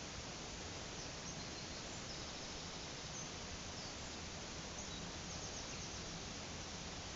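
Steady rush of a brook and small waterfall, with faint, short, high bird chirps scattered through it, including a quick run of chirps a little past the middle.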